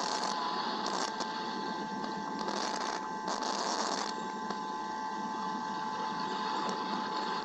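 Steady hiss with a constant thin electrical whine from the nest camera's microphone. Several short, brighter surges of hiss come in the first four seconds.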